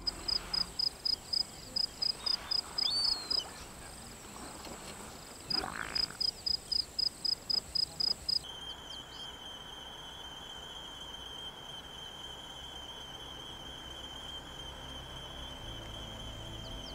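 Frogs calling: a rapid series of high-pitched pulses, about four a second, in two runs of a few seconds each. From about eight seconds in, a steady high trill takes over.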